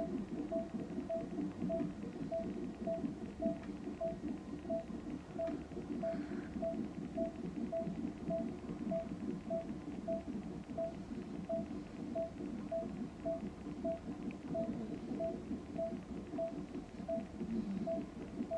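Hospital bedside monitor beeping steadily, a short mid-pitched beep just under twice a second, over a constant low whooshing hum.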